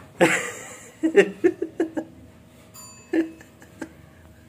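People laughing in short bursts, with a brief high squeak about three seconds in.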